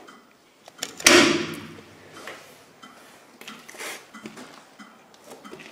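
A single loud metal clank about a second in, ringing briefly, as the old electrical gear is handled, followed by a few fainter knocks and scuffs.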